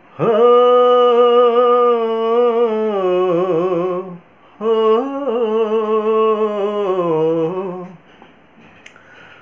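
A man humming two long melodic phrases without words, with a short break between them about four seconds in; each phrase steps down in pitch and ends with a wavering vibrato. It is a vocal demonstration aiming for a velvety, light singing tone.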